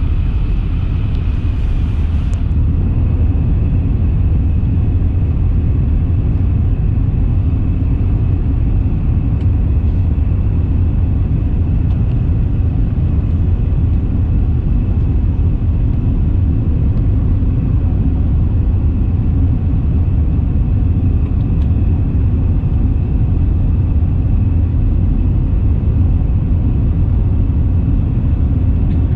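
Jet airliner engines: a steady low rumble with a faint, even high whine above it, holding constant throughout.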